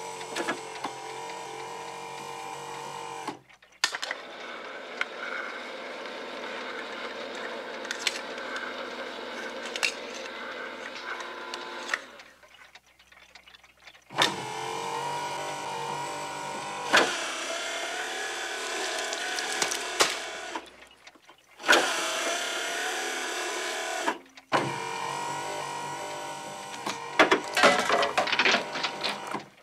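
A motorised can-opening machine whining in several stop-and-start runs as its electric motors swing a mechanical arm and an electric can opener cuts open cans of dog food. A quick string of metallic clatters near the end.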